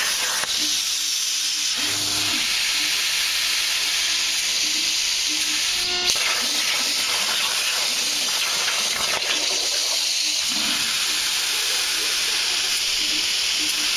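CNC plasma cutting torch hissing steadily with its jet of compressed air, with one sharp click about six seconds in.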